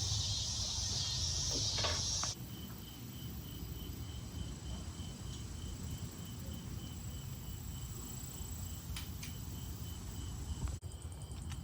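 Insects chirping: a dense high insect hiss that cuts off abruptly about two seconds in, then a steady cricket-like chirp pulsing about four times a second over a low background rumble.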